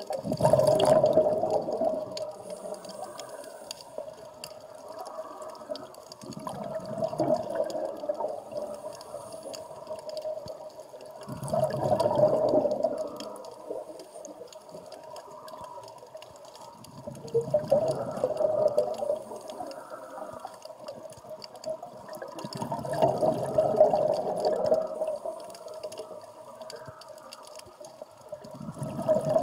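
Scuba diver breathing through a regulator underwater: a rush of exhaled bubbles about every five to six seconds, over a steady faint tone.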